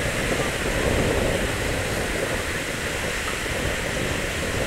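Steady murmur of a large crowd over the wash of surf, with no firework bursts.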